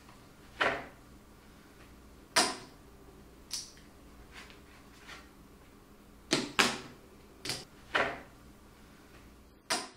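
A poker chip case and red poker chips being handled: about eight separate sharp clacks, some in quick pairs, as the case is opened and a stack of chips is set down on a hard table.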